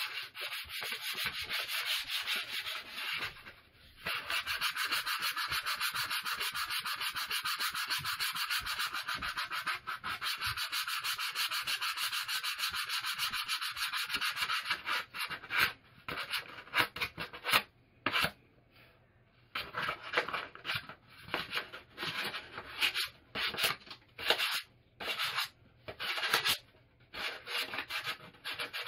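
Hand sanding of a new wooden axe handle with a folded sheet of sandpaper: rapid, steady back-and-forth rasping strokes for the first half, with a brief stop about four seconds in. In the second half the strokes come in short, broken runs with pauses.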